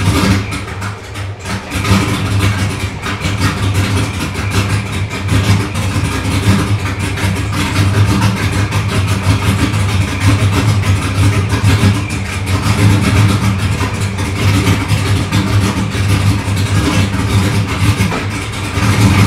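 Supercharged LS1 V8 with aftermarket heads and cam and a ProCharger D1SC blower, running steadily at idle after a cold start.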